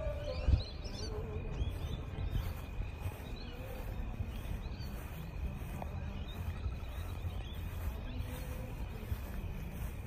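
Outdoor ambience with small birds chirping faintly and repeatedly over a low rumble of wind and handling on a phone microphone. A steady faint high tone runs underneath, and there is a single bump about half a second in.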